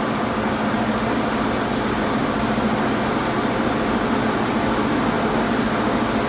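Steady fan-like rushing noise with a low hum, unchanging throughout.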